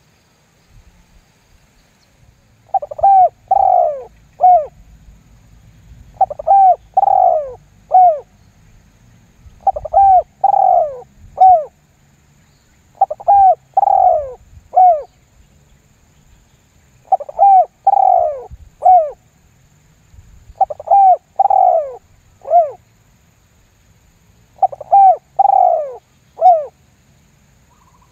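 Spotted dove (tekukur) cooing a lure call: a three-note coo phrase, the middle note longest, repeated seven times at about three-and-a-half-second intervals.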